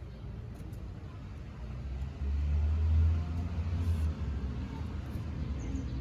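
Low rumble that swells suddenly about two seconds in, holds for about two seconds, then eases back.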